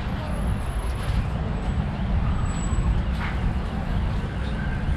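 Busy city street traffic: a steady rumble of vehicles passing.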